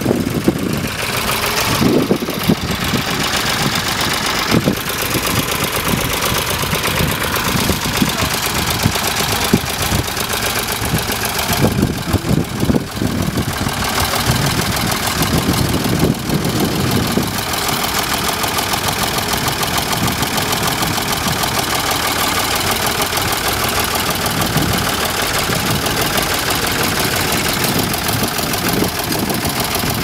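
Ford 3000 tractor's three-cylinder engine running steadily under load as it pulls a mounted plough through stubble.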